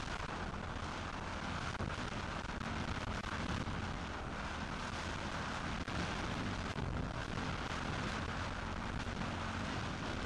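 Motocross bike engine running steadily, muffled and mixed with wind rumble on the camera microphone.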